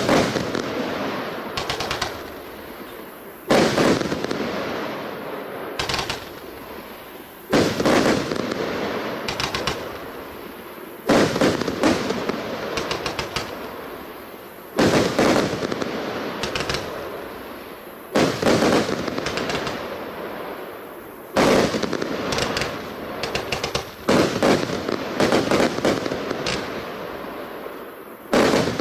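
A 20 mm, 50-shot consumer firework cake firing mine-to-salute shots: a sharp loud report about every three to four seconds. Each is followed by a cluster of smaller pops and a fading crackle.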